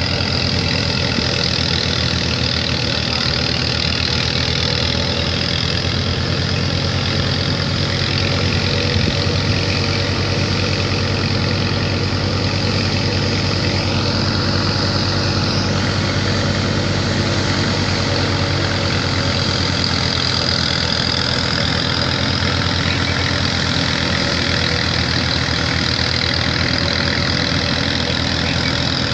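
Tractor-driven threshing machine running steadily in a continuous, even engine drone.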